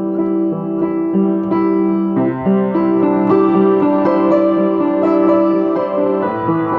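Upright piano playing a melody over held low notes. New notes are struck every half second to a second, and the low notes change about two seconds in and again near the end. It is played on the few keys that are still in tune on an otherwise out-of-tune instrument.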